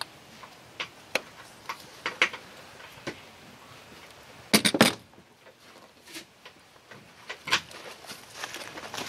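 Scattered clicks and knocks of a lever-action grease gun and its hose being handled and coupled to a boat trailer's wheel-hub grease fitting, with one louder clatter about halfway through.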